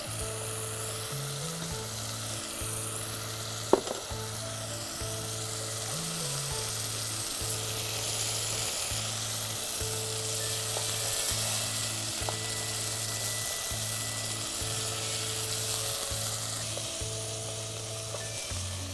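Minced chicken sizzling in a pot as it cooks down in a little water, stirred with a wooden spatula near the end. Background music with a repeating bass line plays underneath, and a single sharp clink comes about four seconds in.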